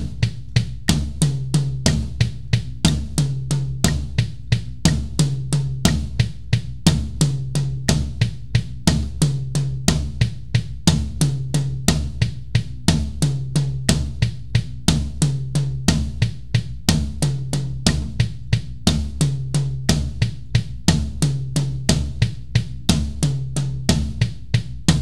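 Acoustic drum kit playing a one-beat sextuplet fill over and over: right hand, left hand, left hand, right hand on the drums, then two bass-drum strokes. It keeps a steady, even tempo as a looped speed-building exercise for the bass-drum foot and the weak hand.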